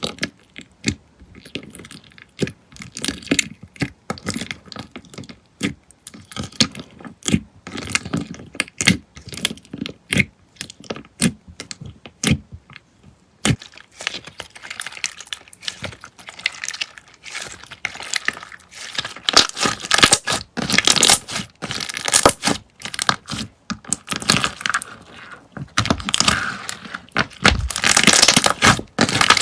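Slime being pressed and squished by hand, giving a dense run of crackles, clicks and pops that grows louder in the second half.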